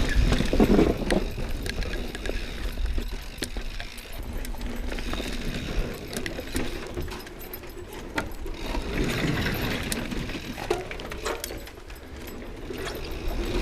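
Mountain bike rolling over rough singletrack: tyre noise with frequent rattling clicks from the bike, over a steady low wind rumble on the microphone.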